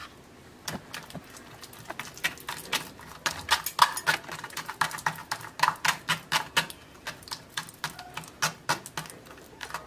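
A spoon pressing and scraping soft bael pulp through a stainless steel wire-mesh strainer, making quick, irregular clicks and scrapes against the mesh, several a second, starting about a second in.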